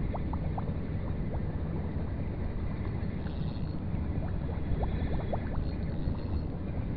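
Water lapping and gurgling at the water's edge, with many short little squeaks of bubbling water over a steady low rumble of wind on the microphone.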